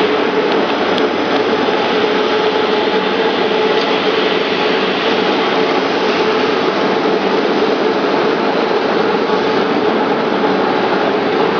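Steady, unchanging machinery noise with a constant hum, typical of a workshop with machines running.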